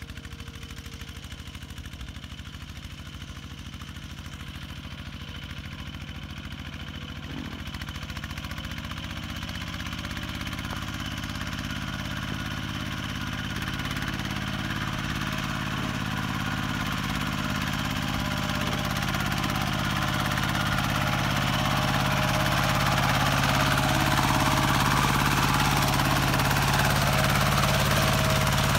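Kubota RT120 single-cylinder diesel engine on a two-wheel walking tractor, chugging steadily under load while working the field. It grows steadily louder as it comes closer.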